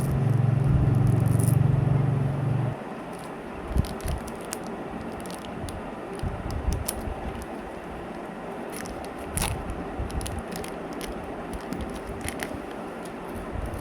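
A loud steady low hum for the first two and a half seconds, then scattered crackles, clicks and scrapes as Mars bar wrappers are handled and opened.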